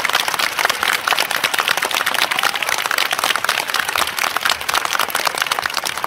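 A crowd applauding: many hands clapping steadily, easing off slightly near the end.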